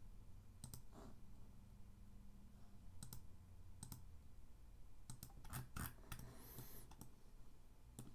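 Faint computer mouse clicks, scattered singles and doubles, with a quick run of clicks about five to six seconds in.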